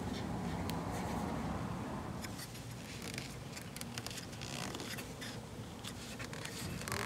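Hands stretching and rubbing black vinyl covering over a foam-padded dashboard: a scratchy rubbing and rustling with many small crackles as the material is pulled and smoothed.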